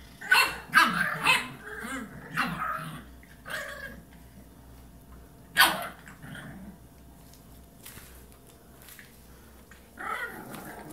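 Puppy barking: several sharp yaps in the first four seconds and one loud bark about halfway through, then only faint sounds.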